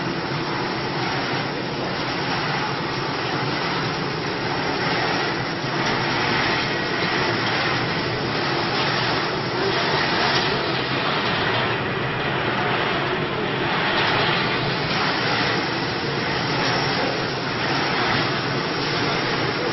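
Steady mechanical noise of a rotating steel drum on a caramel popcorn line running, with coated popcorn tumbling inside it and pouring down a chute into a plastic bin.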